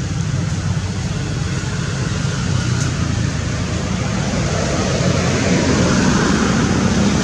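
Steady low mechanical hum under a rushing noise, like a motor running nearby, growing a little louder in the second half.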